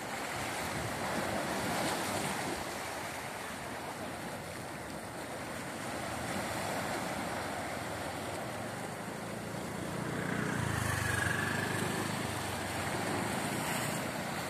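Surf breaking and washing onto a sandy beach, swelling and easing every few seconds, with wind rumbling on the microphone, heaviest about ten seconds in.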